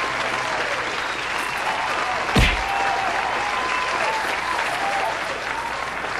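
Crowd applauding, an arena crowd sound effect, with a single hard punch-like impact sound effect about two and a half seconds in.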